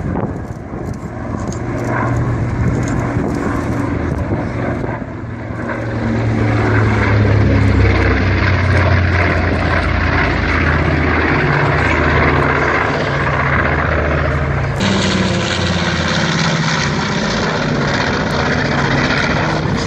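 Twin Wright R-2600 radial engines of a B-25 Mitchell bomber running as the aircraft flies past, the engine note growing louder about six seconds in. The sound changes abruptly near the end, as at a cut to another pass.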